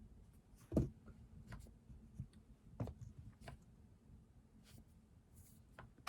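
Scattered taps and clicks of desk work while studying, with pen and stationery handled on a desk. The loudest is a knock about a second in, and a second, softer knock comes a couple of seconds later.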